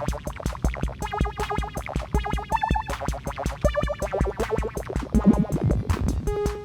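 Electronic music: a Roland TR-6S drum machine keeps a fast, steady beat under analog synthesizer lines with wobbling, repeating notes, which near the end settle into steadier held tones.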